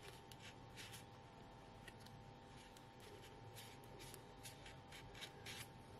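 Near silence with faint, scattered rustles of card paper being handled and pressed together.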